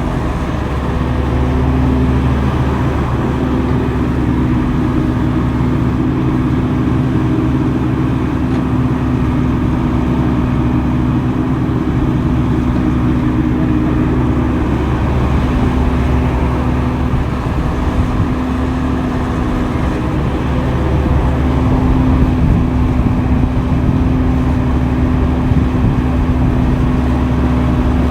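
Diesel engine of heavy earthmoving equipment running steadily at working speed, a constant low drone whose note wavers briefly a couple of times.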